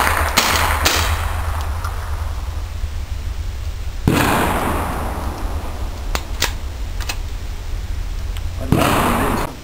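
.22 LR rifle shots from an AR fitted with a CMMG .22 conversion kit: two quick shots at the start, another about four seconds in and one near the end, each trailing off in a long echo. Faint clicks between the last two shots.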